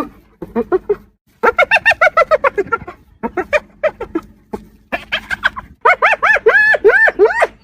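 Spotted hyena laughing: bouts of quick, rising-and-falling yelps, several a second. There are four bouts with short pauses between them; the last is the longest and rises highest in pitch.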